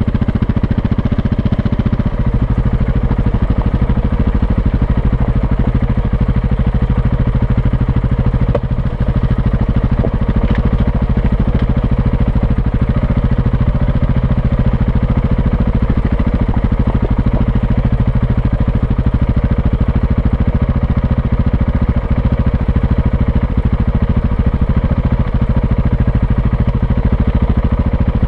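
Off-road motorcycle engine running at steady low revs as the bike is ridden slowly over a rough dirt track.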